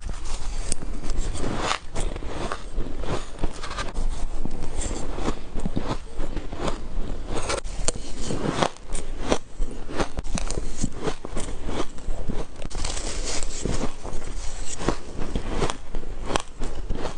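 Ice being bitten and crunched between the teeth: an irregular, continuous run of sharp cracks and crunches, several a second.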